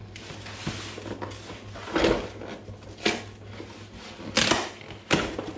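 Cardboard box of a router sign-making kit being opened by hand: rustling and crinkling of the packaging, with four louder knocks or crunches as the flaps and contents are moved.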